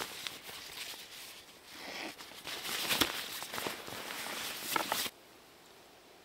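Irregular crunching footsteps on the forest floor, which stop abruptly about five seconds in, leaving only faint steady hiss.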